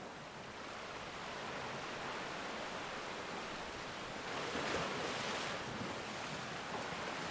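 Steady rush of ocean surf as a background sound effect, swelling a little about two-thirds of the way through.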